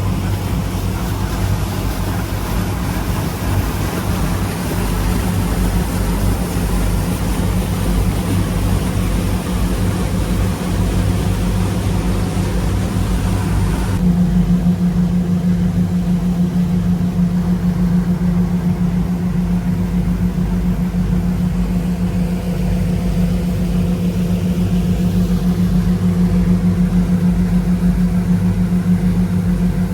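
Charter fishing boat's engine running steadily, a low hum under a wash of wind and water hiss. About halfway through the hiss falls away sharply and the engine hum becomes stronger and steadier.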